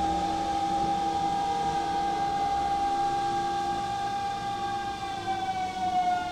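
Hanshin Mukogawa Line electric train running with a steady whine of several pitches together, which begins to drop in pitch near the end.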